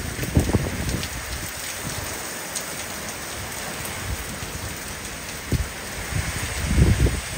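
Heavy rain pouring down in a steady, dense hiss. Low gusts of wind buffet the microphone shortly after the start and again near the end.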